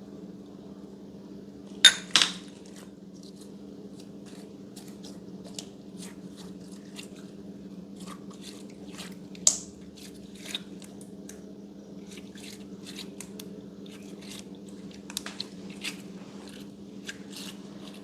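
Slime being handled: scattered sticky clicks and pops, the sharpest about two seconds in and near the middle, over a steady low hum.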